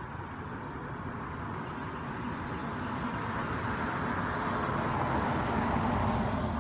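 A road vehicle passing out of sight, a steady rush of engine and tyre noise that slowly grows louder and peaks near the end.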